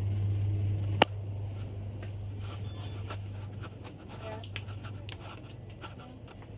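Handling noise on a phone's microphone: one sharp click about a second in, then scraping and rustling. A steady low hum underneath fades after the click.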